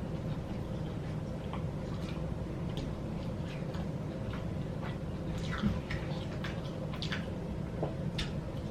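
Close-up eating sounds of a person chewing fried chicken wings: irregular wet mouth clicks and lip smacks, more frequent in the second half, over a steady low hum.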